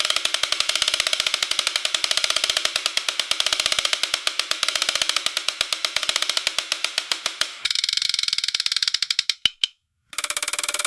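Spinning gear wheel clicking rapidly and evenly, like a fast ratchet. Near the end the spin slows to a few separate ticks, stops briefly, then starts clicking again.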